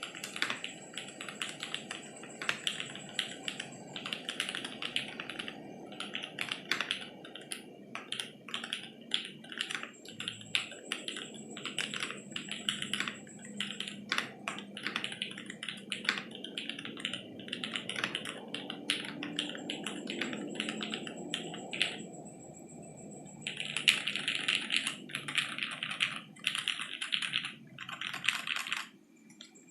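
Fast, continuous typing on a Vertizon FRL TKL mechanical keyboard with lubed Jwick Black linear switches, an FR4 plate, no dampener and ABS Cherry-profile keycaps: a rapid stream of key clacks, with a short pause about three-quarters of the way through.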